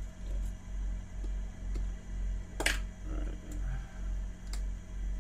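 A steady low hum that swells and fades about twice a second, with one sharp click about two and a half seconds in and a few faint ticks: small metal tools and parts being handled on an opened iPhone 6.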